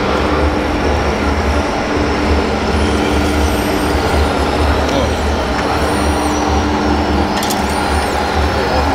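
Radio-controlled scale construction machines running: a steady low engine-like rumble, with thin high whines rising and falling now and then.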